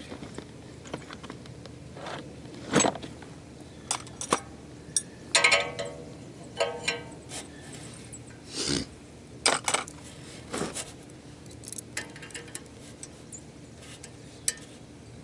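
Irregular metallic clinks, knocks and rattles, a few ringing briefly, over a steady low hum.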